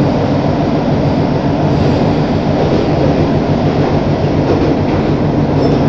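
Toei Ōedo Line linear-motor subway train running through a tunnel, heard from inside the passenger car: a loud, steady running noise with a low hum underneath.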